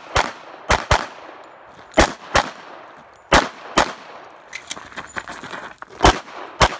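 Pistol shots fired in quick pairs during a practical shooting stage, each with a short echo trailing it. There is a pause of about two seconds partway through while the shooter moves to a new position.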